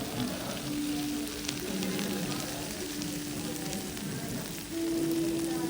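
Ankake sauce sizzling and bubbling on a hot iron teppan plate under a serving of yakisoba, a steady crackle of fine pops. A low steady hum runs underneath and grows a little louder near the end.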